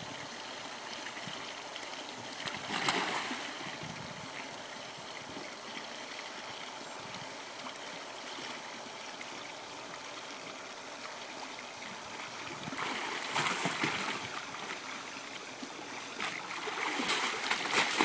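Water splashing as a capsized kayaker tries to roll the kayak upright: paddle and hull churning the water in three louder bouts, about three seconds in, around thirteen seconds, and near the end, over a steady rush of water.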